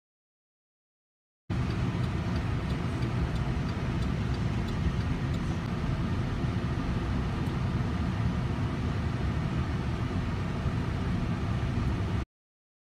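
Steady road and engine noise of a moving car, heard from inside the cabin. It starts abruptly about a second and a half in and cuts off near the end.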